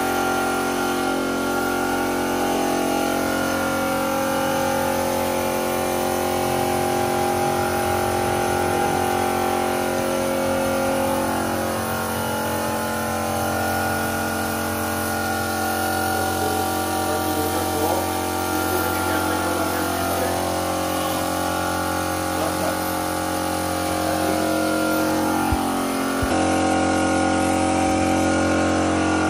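A machine motor running steadily, a hum made of several steady tones that shifts slightly near the end.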